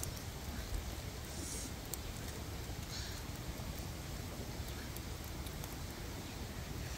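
Open wood fire burning under grilling octopus skewers: a steady low rumble with a few faint crackles, and two short hisses about a second and a half and three seconds in.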